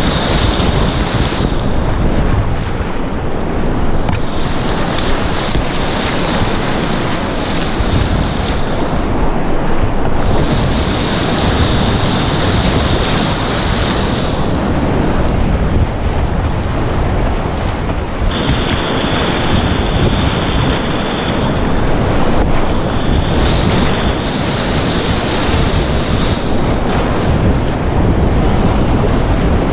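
Whitewater rapids rushing and splashing loud and close around a kayak running them, water spraying over the boat and the action camera. A steady, dense rush with no let-up.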